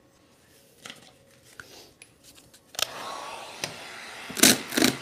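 Printed vinyl wrap film being handled, crinkling sharply two or three times near the end over a steady low hiss. Before that, near silence with a few faint clicks.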